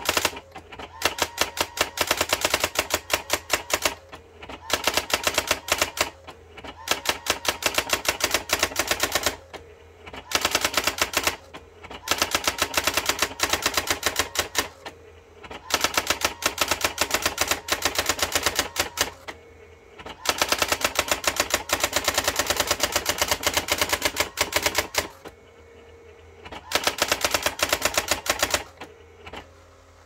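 Brother GX-6750 daisy wheel electronic typewriter typing out its built-in self-demo text on its own. The print wheel strikes in rapid runs, each line a burst of one to a few seconds, broken by short pauses between lines. The typing stops about a second before the end.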